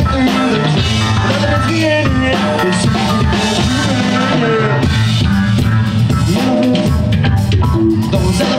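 A live dub-funk band playing: electric guitar over a moving bass line and a drum kit, with hand percussion.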